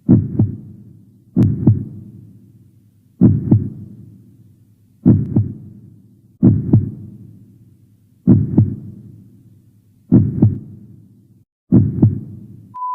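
Heartbeat sound effect: a slow lub-dub double thump repeating eight times, about every one and a half to two seconds. Near the end a steady high beep starts.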